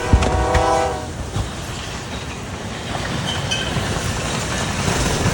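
A horn sounds a steady chord that cuts off about a second in. A steady low rumble with scattered knocks follows.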